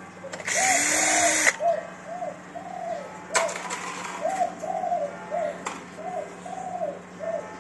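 Cordless drill-driver whirring for about a second near the start, its motor pitch rising, as it drives out a bracket screw inside a photocopier; a second, shorter burst of noise follows about three and a half seconds in. Pigeons coo over and over in the background.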